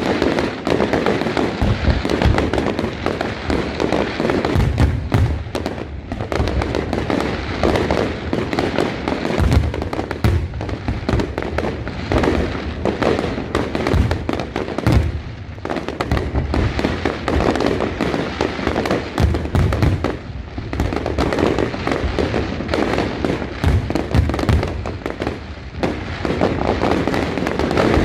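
Aerial fireworks display at full intensity: shells bursting in a thick, continuous crackle, with frequent deep booms throughout.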